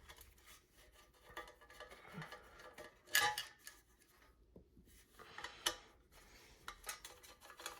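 A hand screwdriver backing out small screws from a ceiling fan's metal motor housing: light scraping clicks and rattles, with a louder metallic clink about 3 seconds in and again about 5.5 seconds in.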